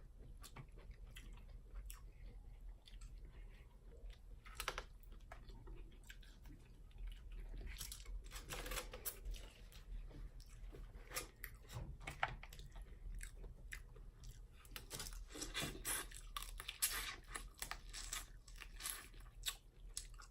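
Close-miked eating from a seafood boil: chewing with irregular crunches and sharp clicks, the mouth working through shellfish and sides.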